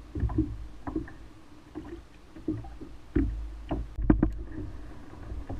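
Knocks and thumps against a kayak's hull, irregular, about one or two a second, with low rumbles between them.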